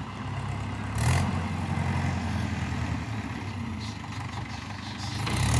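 Mahindra 575 tractor's diesel engine running steadily, a low hum, with two short rushes of noise about a second in and near the end.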